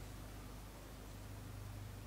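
Quiet room tone: a faint steady low hum under light hiss, with no distinct sounds from the work.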